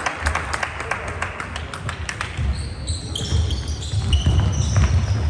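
Basketball game on a sports hall floor: ball bounces and running footsteps. A run of short, high sneaker squeaks comes in about three seconds in.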